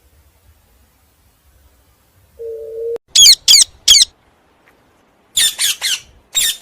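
A parrot screeching in short harsh squawks, three in quick succession and then another rapid run. Just before them comes a brief low hooting note.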